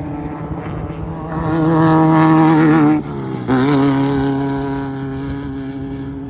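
Class 1600 off-road race car's air-cooled Volkswagen 1600 cc engine running hard. Its note climbs and grows louder for a couple of seconds, cuts off abruptly about three seconds in, then returns half a second later and slowly fades.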